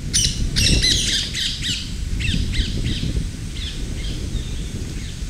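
Birds calling: a quick series of short, arching high calls, thickest and loudest in the first two seconds, then fewer and fainter. A steady low rumble runs underneath.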